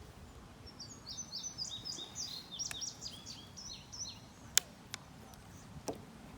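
A songbird singing a quick run of many short, high, chirping notes for about three and a half seconds. Near the end come three sharp clicks, the first the loudest.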